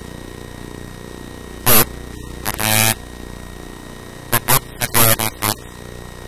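A man's voice speaking in short phrases, with pauses between them, over a steady electrical hum.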